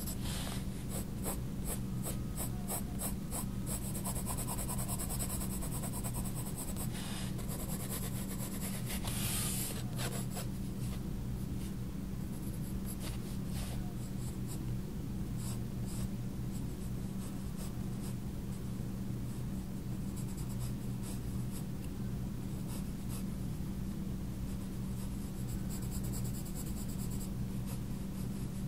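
A Faber-Castell Polychromos coloured pencil scratching across sketchbook paper in many quick, short hatching strokes, with a denser scratchy run about nine seconds in. A steady low hum lies underneath.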